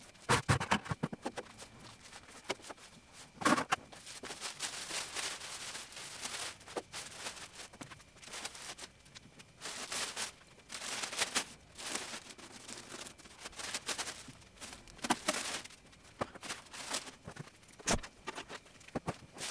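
Thin plastic sheeting rustling and crinkling in irregular bursts as it is spread and pulled over a car body.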